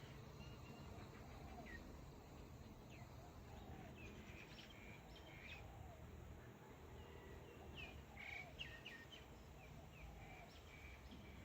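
Faint birds chirping: scattered short, high chirps with fainter, lower calls now and then, over a low steady background hum.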